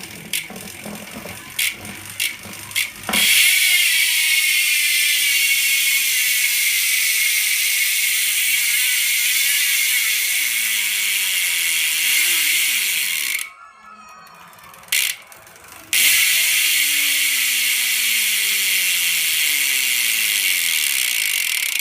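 Colony Wasp BMX rear hub freewheeling as the wheel spins, its pawls ratcheting in a loud, fast buzz. A few single clicks come first, then the buzz runs for about ten seconds, stops, and starts again a couple of seconds later.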